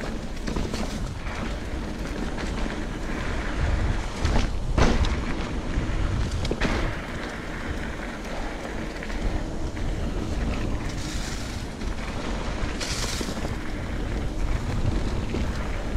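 Wind buffeting the microphone of a camera riding along on a mountain bike, over a steady low rumble. There are sharp knocks about five and seven seconds in and two brief hisses near the end.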